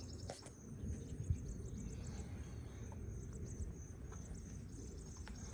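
Insects chirping in a steady, high-pitched pulsing rhythm over a low outdoor rumble, with a couple of faint clicks near the start.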